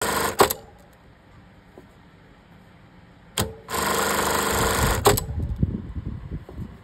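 Industrial lockstitch sewing machine running in short bursts. It runs briefly at the start, stops for about three seconds, then runs again for about a second and a half from just under four seconds in. Sharp clicks come as it starts and stops, and softer low knocks follow.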